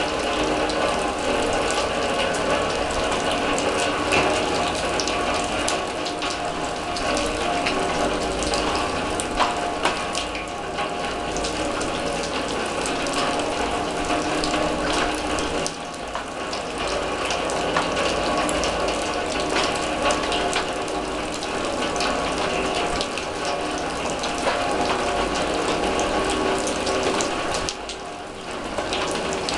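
Rain falling on an open-topped steel drum: a dense, steady patter of quick metallic taps over a wash of rainfall, easing briefly near the end.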